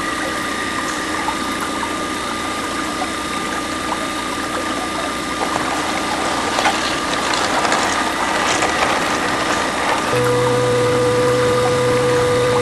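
Small electric motor of a homemade toy drilling rig or mini water pump running steadily, with a whine and a gear rattle. About ten seconds in, a second steady tonal hum joins for a few seconds.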